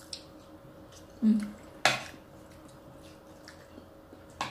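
Metal spoons clinking and scraping against plates and bowls while eating, a few separate clinks, the loudest a little under two seconds in.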